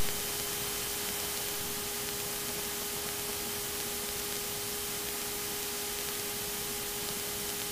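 Steady low hiss with a faint steady hum on an aircraft headset intercom and radio feed between transmissions, opening with a short click.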